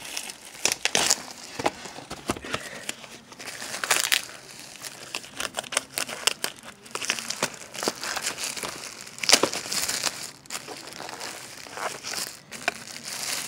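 Packaging being torn open and handled by hand: irregular crinkling and tearing with sharp crackles, the sharpest about nine seconds in.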